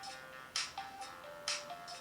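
HTC Dream (T-Mobile G1) ringtone playing: a simple electronic tune of short single notes over a beat, with a sharp percussive hit just under once a second and lighter ticks in between.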